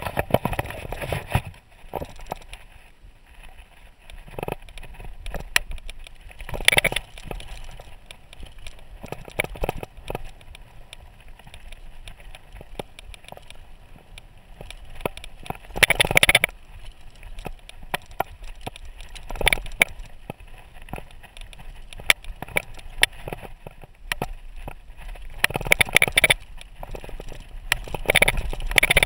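Mountain bike riding down a rough dirt and stone singletrack: continuous tyre noise on the ground and irregular clicking and rattling of the bike over bumps, with several louder, rougher bursts.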